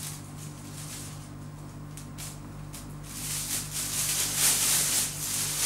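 Thin plastic carrier bag rustling and crinkling as clothes are handled and pulled in and out of it. A few short crinkles come first, then a louder stretch of rustling from about three seconds in until just before the end.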